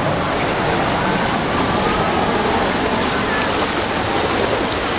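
Steady rush of water in a shallow water-park wave pool, with the distant voices of a crowd faintly over it.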